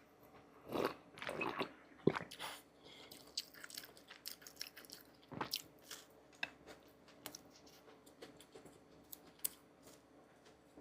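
Irregular crunching and crackling of food, with a cluster of louder crunches in the first two seconds, another strong one about five seconds in, and scattered small clicks between.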